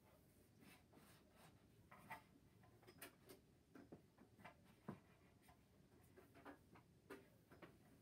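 Faint, irregular clicks of a computer keyboard and mouse being used, one or two a second with a few sharper ones.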